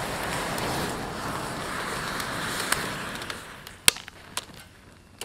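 Thousands of bundled safety matches flaring up together in a dense rushing noise of fire. It fades after about three seconds into scattered crackles and sharp pops, the loudest pop about four seconds in.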